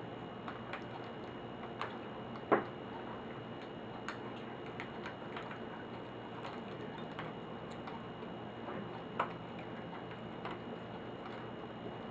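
Scattered small clicks and taps of a laptop's plastic and metal parts being handled during disassembly, over a steady background hiss, with a sharper knock about two and a half seconds in.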